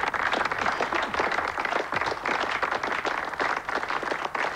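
Applause: many people clapping their hands in a dense, steady patter.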